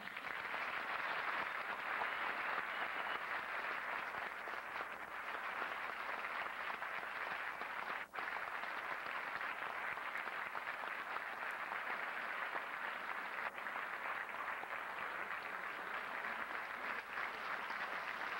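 Audience applauding steadily, recorded on old VHS tape, with a brief dropout about eight seconds in, then cutting off suddenly at the end.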